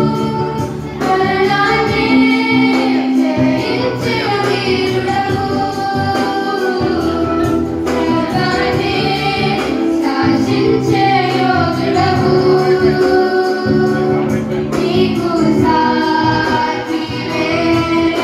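Background music: a song with a singing voice over an instrumental accompaniment with held bass notes.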